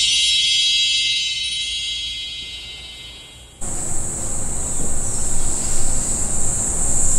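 A high, shimmering ringing tone with many pitches at once, which holds and then fades away over about three seconds. Near the middle it gives way abruptly to outdoor ambience: wind on the microphone and a steady high hiss.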